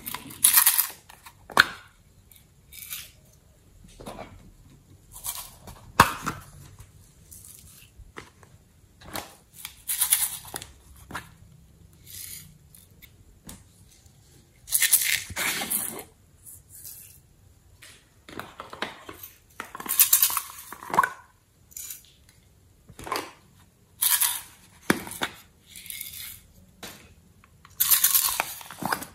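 Hard plastic containers handled over a glass dish: irregular clatters, scrapes and crinkly rustles in separate bursts, with a sharp click about six seconds in.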